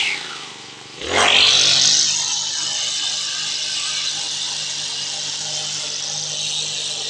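Brush cutter engine dropping off throttle, then revving sharply back up about a second in and running steadily at high speed as the line head cuts grass.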